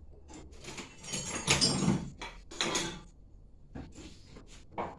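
Metal tools scraping and knocking against a brushcutter's engine parts while a glued-on part is pried loose: a long stretch of scraping with some metallic ringing, a shorter scrape, and scattered clicks.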